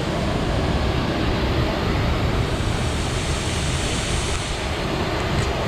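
Waterfall pouring: a steady rush of falling water, loud and even throughout.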